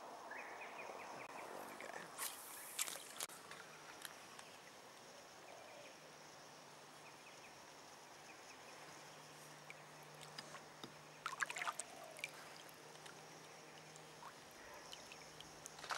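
Water lapping and sloshing quietly around a kayak, with a few short sharp splashes and knocks about two to three seconds in and again near twelve seconds.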